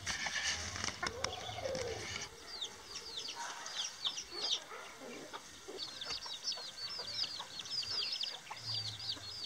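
Chicks peeping: many short, high chirps that fall in pitch, coming thick and fast from about two seconds in. A hen clucks low in the first two seconds.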